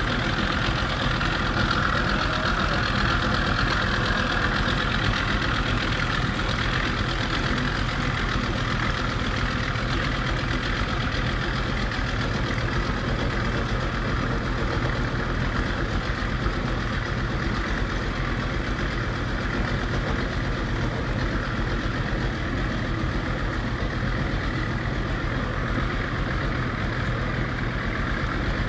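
A small boat's engine running steadily, with a constant drone and no change in speed.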